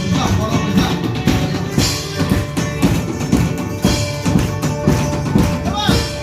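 Upbeat music with a steady, driving drum beat.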